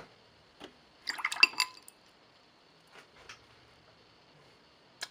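A watercolor brush being rinsed in a jar of water, clinking against the jar in a quick run of clinks and splashes about a second in, then a few faint taps.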